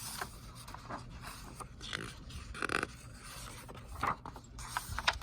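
Paper rustles, scrapes and small taps of a picture book being handled, its pages turned. There is a brief higher-pitched sound a little past the middle and a few sharp clicks near the end.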